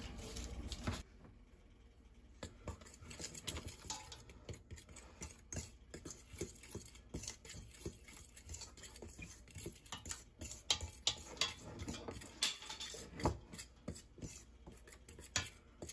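A fork stirring dry fish-fry breading mix in a stainless steel pot, making light, irregular clicks and scrapes against the metal.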